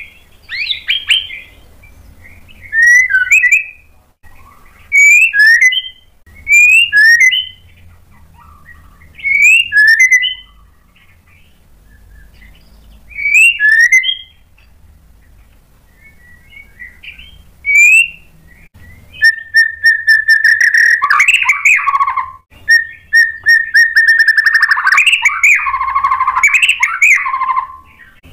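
White-rumped shama (murai batu) singing. Short, loud whistled phrases come with gaps of one to four seconds, then from about two-thirds of the way in comes a long, nearly unbroken run of rapid, varied song.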